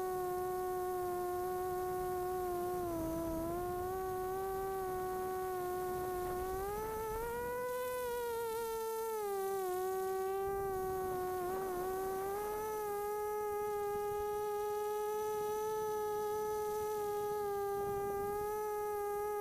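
DRQ250 Mini-D quadcopter's motors and propellers whining in flight, heard from a camera on the quad itself. The pitch holds steady, dips slightly a few seconds in, then rises for about two seconds as the throttle goes up and falls back to a steady whine.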